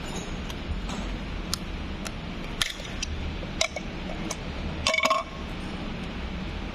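Small parts being handled: a few sharp clicks and light metallic clinks as an LED circuit board on its metal bracket is worked out of the scooter's wiring. The loudest clinks, with a brief ring, come about five seconds in, over a steady low hum.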